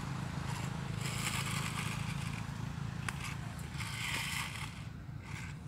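Rustling and scraping in dry leaf litter as monkeys move about, in two spells of about a second each, with a sharp click just after the first, over a steady low hum.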